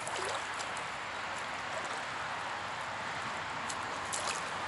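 Trout stream water running with a steady rushing hiss, with a few faint clicks near the end.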